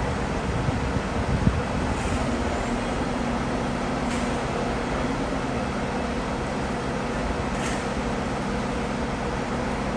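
Heavy diesel machinery running steadily, with a low engine hum and a few brief, faint high hisses.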